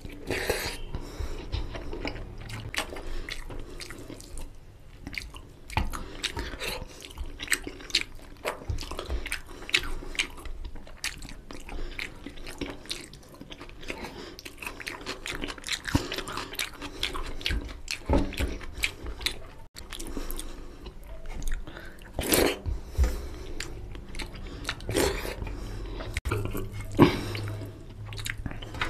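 Close-miked chewing and biting of a man eating mutton curry and rice by hand: wet mouth sounds with many irregular small clicks and crackles.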